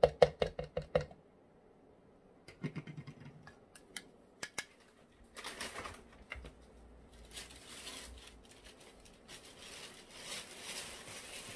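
Kitchen work sounds: a quick run of sharp clicks or knocks, about six or seven a second, then a shorter run and two single knocks. After that come stretches of rushing noise.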